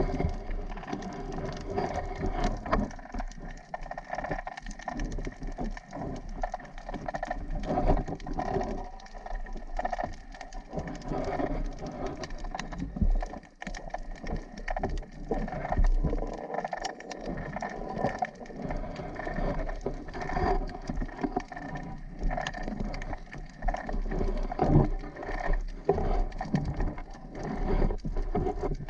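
Water noise with steady crackling and pattering, many small clicks over a low rumble.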